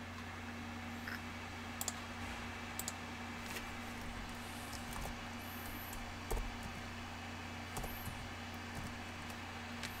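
Irregular computer keyboard and mouse clicks, a dozen or so scattered taps, over a steady low electrical hum.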